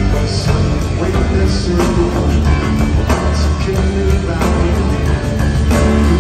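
Live rock band playing through a large hall's sound system, heard from within the audience: electric guitar, bass, keyboards and drums with a steady beat.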